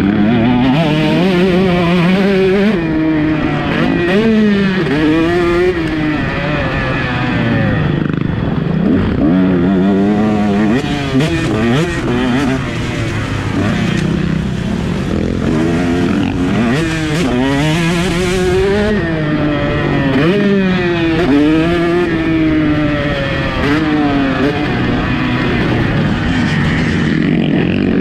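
KTM 150 SX two-stroke motocross bike ridden around a track, its engine revving up and dropping back over and over as the throttle is opened and closed and the gears are changed.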